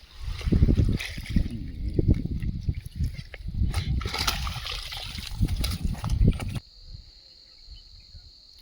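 River water sloshing and splashing irregularly, with a few knocks. After about six and a half seconds it cuts off suddenly to a steady high chirring of crickets.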